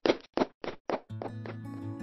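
Quick footsteps thudding down stairs, about three steps a second. About a second in they stop and music with guitar begins.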